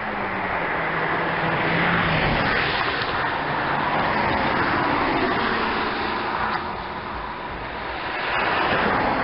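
Cars passing on a highway: loud tyre and engine noise, with an engine note that falls in pitch as one car goes by in the first couple of seconds, and another car swelling past near the end.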